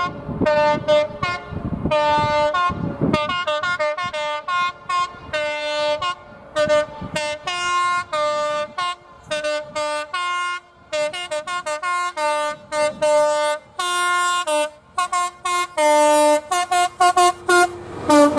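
Train air horn sounded in a long rapid series of short toots, a few each second, with the pitch of the chord shifting from toot to toot like a tune being played.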